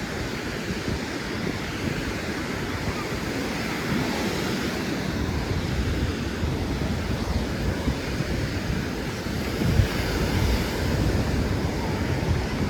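Sea surf washing onto a sandy beach, a steady rushing noise, with wind buffeting the microphone in gusts.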